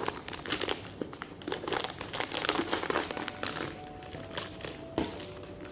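Thin plastic packaging bag crinkling as it is cut open with scissors and pulled apart, with one sharp snap about five seconds in.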